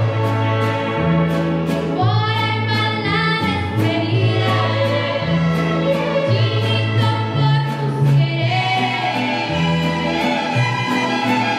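Student mariachi ensemble playing: a girl's voice sings the melody over violins, a moving bass line and a steady strummed rhythm of about three strokes a second.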